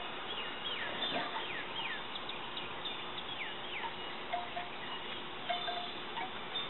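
Wind chime ringing in steady high tones, with birds chirping in quick falling notes.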